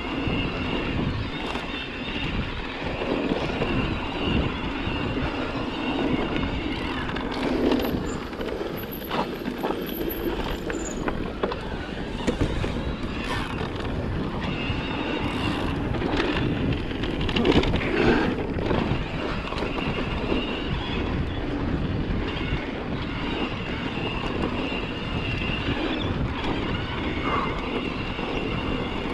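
Electric mountain bike ridden over a dirt singletrack: tyre noise and the bike rattling and knocking over rough ground, with a steady high whine from the pedal-assist motor that comes and goes in long stretches.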